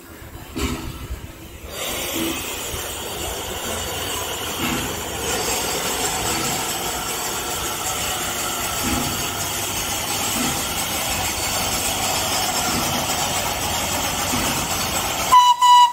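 FS Class 740 steam locomotive hissing steadily with steam as it turns on a turntable. A brief high tone sounds near the end.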